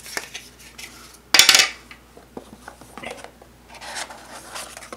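Cardboard packaging being handled: a card insert scrapes against the box as it is lifted out, the loudest scrape coming about a second and a half in, with light taps and rustles of card and paper around it.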